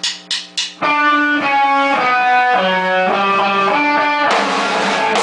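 Electric guitar: four quick sharp clicks, then a run of ringing notes changing about twice a second. A steady hiss joins near the end.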